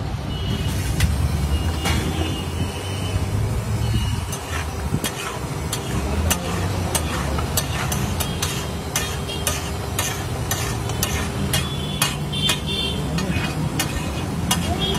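Metal ladle clinking and scraping against a large flat tawa griddle as pav bhaji is stirred and spread, sharp knocks coming about one to two a second in the second half, over a low steady rumble.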